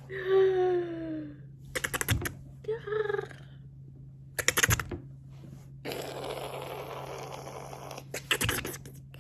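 A woman making playful mouth noises: a short voiced hoot falling in pitch, quick bursts of clicking or smacking sounds, and a long breathy rasp over the last few seconds.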